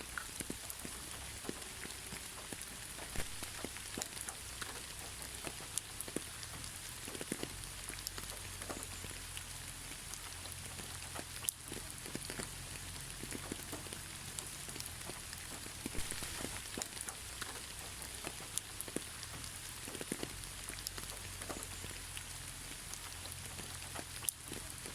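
Steady moderate rain falling, a constant hiss with scattered individual drops ticking and pattering on a surface, without thunder.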